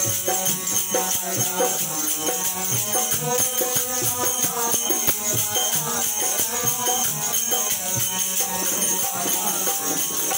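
Bundeli folk song played live on harmonium, dholak drum and wooden kartal clappers, the kartals' jingles rattling in a steady rhythm, with male singing.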